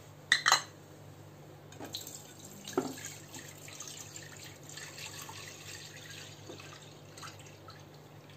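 Full-cream milk pouring from a plastic jar into a nonstick kadhai, a steady splashing pour from about two seconds in until near the end. Two sharp knocks come just before the pour, and a dull knock as it begins.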